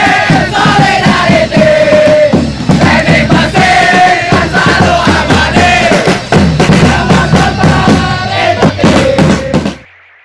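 Loud music with a group of voices chanting or singing over a steady beat, cutting off abruptly near the end and leaving a brief fading echo.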